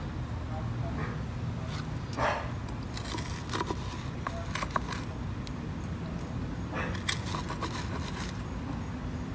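Potting soil and a succulent being handled and packed into a planter by hand: scattered light scrapes and crackles, clustered about three to five seconds in and again near eight seconds, over a steady low background rumble.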